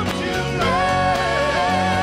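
Live band music with a klapa, a Dalmatian male vocal group, singing together; about half a second in the voices settle on a chord held in close harmony over acoustic guitar, bass and drums.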